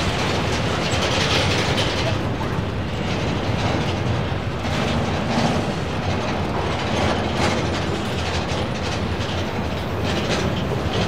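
Freight train rolling past, its cars' wheels clattering steadily over the rails.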